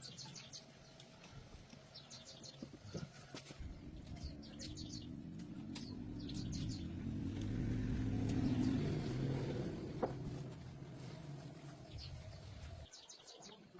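Small birds chirping in quick repeated series, while a low vehicle rumble builds over several seconds, peaks about the middle, and fades away. A single sharp click is heard about three quarters of the way through.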